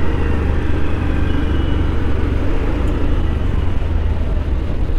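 Steady low rumble of a motorbike ridden in slow city traffic: its engine and wind on the camera mounted on it, with the running of surrounding cars and bikes.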